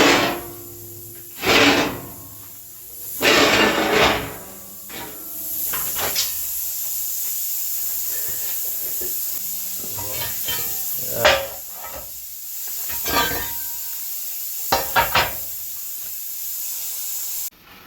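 Hypertherm Powermax65 plasma torch on a CNC table cutting 1/2-inch steel plate: a steady high hiss broken by several short, louder bursts. It cuts off suddenly near the end.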